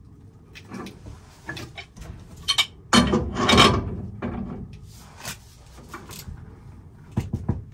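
Wrench work on threaded black steel pipe fittings: irregular metal clicks and scrapes, with a longer rasping scrape about three seconds in.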